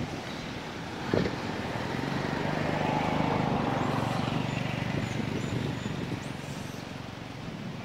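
A motor vehicle passing by: its engine noise swells over a few seconds and fades away. A single sharp knock sounds about a second in.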